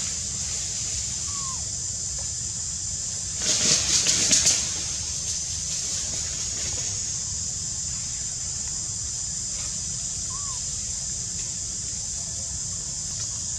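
Outdoor ambience of a steady high hiss over a low rumble. About three and a half seconds in, a one-second flurry of rapid rustling with several quick pulses is the loudest sound. Two faint short chirps come about a second in and near the end.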